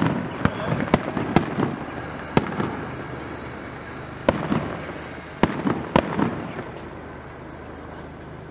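Aerial fireworks shells bursting: a quick series of sharp bangs over a noisy background, thinning out about six seconds in.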